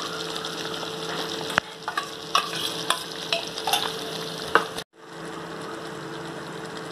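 Thick tomato-based paneer butter masala gravy simmering in a pan: a steady hiss with scattered pops of bursting bubbles. The sound breaks off for a moment about five seconds in, then the simmer goes on more evenly.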